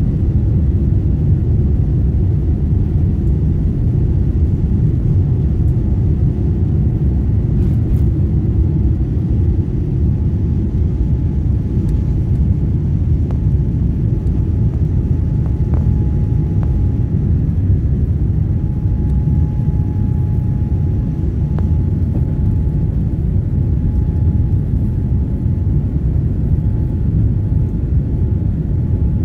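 Jet airliner cabin noise during takeoff: a loud, steady low rumble of the engines at takeoff power as the aircraft rolls down the runway, lifts off and climbs, with a faint steady whine over it in the second half.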